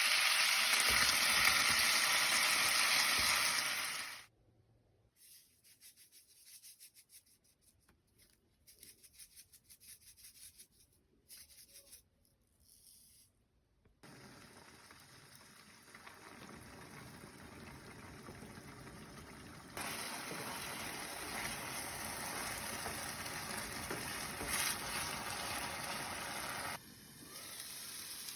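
Food sizzling in a frying pan, heard in separate cuts: a loud steady hiss at first, a quiet stretch with faint scattered sounds, then steady sizzling again that grows louder about two-thirds of the way through and drops near the end.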